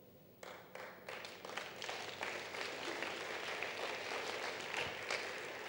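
Congregation applauding, starting about half a second in and fading away near the end.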